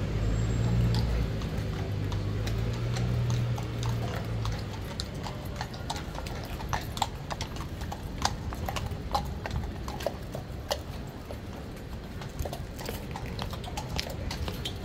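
Shod hooves of cavalry horses clip-clopping on stone paving at a walk. A low rumble underlies the first few seconds.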